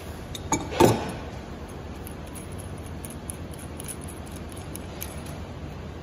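Two sharp metallic clinks about a second in, the second the louder, then faint light ticks: an open-end wrench knocking against a floor scrubber's control panel and the nut of its metal push-button switch as the switch is loosened.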